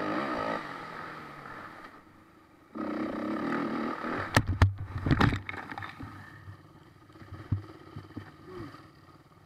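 Dirt bike engine running hard on the throttle, easing off, then pulling hard again. About four and a half seconds in the bike crashes: a cluster of loud thuds and scrapes as it goes down. Afterwards the engine runs low, with a few knocks.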